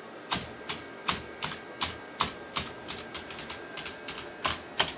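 A string of sharp clicking taps, about two to three a second at an uneven pace, over a faint steady hum.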